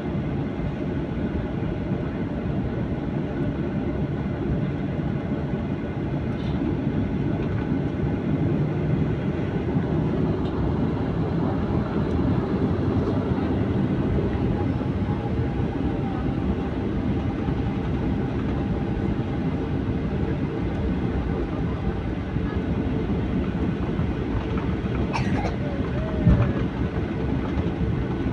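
Cabin noise of a Boeing 737-800 taxiing, heard from inside the cabin: a steady low rumble with faint steady whine tones from its CFM56 engines at taxi power. A single short thump near the end.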